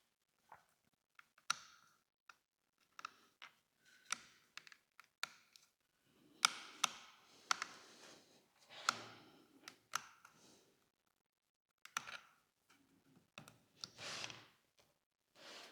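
Light, irregular clicks and taps of a small precision screwdriver working the bottom screws out of a Sony A7R IV camera body, with a busier run of clicks and rubbing about halfway through.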